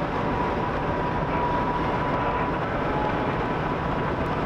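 Steady vehicle road and engine noise heard from inside the cabin while driving on an unpaved road, with a faint steady whine.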